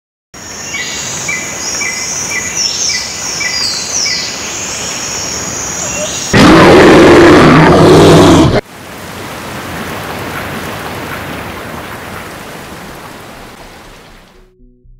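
Rainforest ambience sound effect: a steady hiss of rain with repeated high chirping calls. About six seconds in, a loud thunderclap lasts a couple of seconds and cuts off sharply, then the rain rumbles on and fades away.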